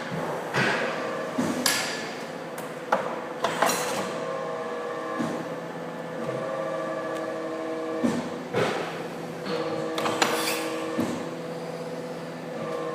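CNC pipe-bending machine working: a steady motor hum whose tones shift every few seconds as the machine moves, with sharp metallic clanks and clicks at irregular intervals.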